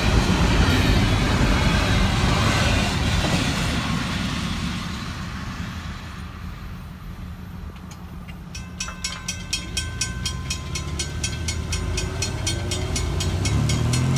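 Wheels of a double-stack intermodal freight train rolling past on the rails, fading away over the first several seconds as the last cars clear. Then, from about eight seconds in, the grade-crossing bell rings in a fast, even run of strikes, and near the end a car engine pulls away across the tracks.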